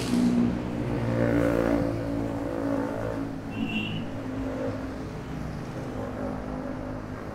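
Street traffic heard from a bicycle: a motor vehicle's engine running close by, swelling a little early on, with a brief high-pitched tone about three and a half seconds in.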